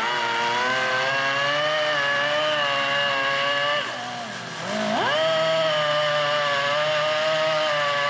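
Power drill motor whining under load as the bit bores into a seized excavator pin. The motor drops off and slows briefly about four seconds in, then spins back up.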